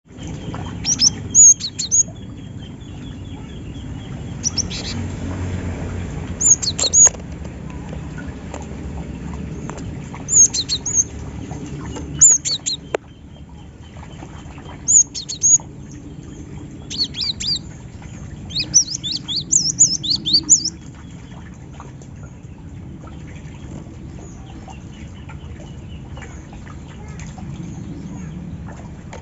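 Cinereous tit (gelatik batu) calling: short bursts of high, sharp chirps every one to three seconds, thickest in the middle, over a steady low background rumble.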